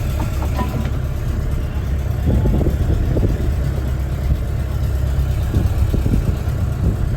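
Fishing boat's engine running steadily, a loud, even low drone with a few faint knocks over it.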